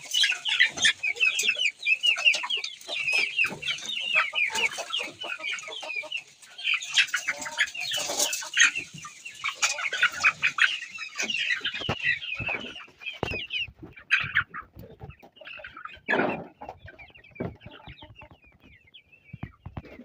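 A cage of young chickens chirping and peeping busily as feed is poured into their trough, with scattered knocks and rattles. The chirping thins out about twelve seconds in, leaving occasional knocks and handling sounds.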